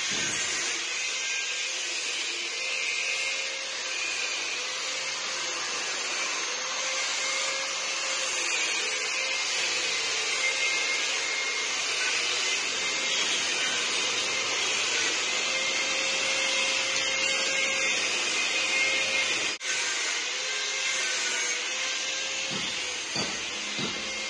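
Electric angle grinder cutting metal pipe: a steady high-pitched whine over a gritty hiss, the pitch wavering slightly as the disc bites. It drops out for an instant about twenty seconds in.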